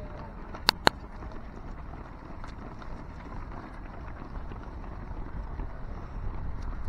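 Footfalls of many runners' shoes pattering on asphalt, with wind buffeting the microphone and growing stronger near the end. Two sharp cracks close together stand out about a second in.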